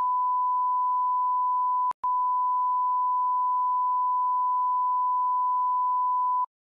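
Censor bleep: a steady, pure beep tone laid over speech to hide swearing. It breaks off for a moment about two seconds in, then a second long bleep runs on and stops shortly before the end.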